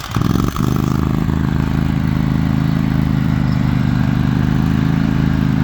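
John Deere and Craftsman riding lawn mower engines just started, settling about half a second in to a steady, even run at idle.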